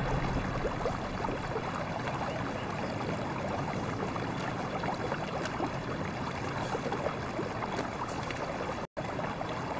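Shallow river water running over stones, a steady babbling with fine crackle. It cuts out for an instant near the end.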